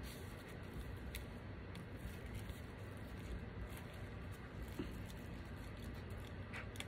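Faint handling noises, a few light clicks and taps, over low steady room noise.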